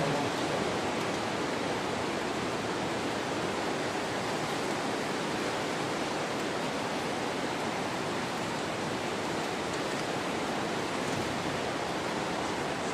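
A steady, even hiss with no distinct knocks or clicks.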